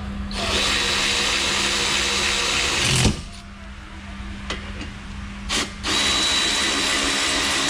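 A power tool runs in two steady stretches, about three seconds and then about two seconds, driving the 17 mm brake caliper bracket bolts tight, with a short knock between them.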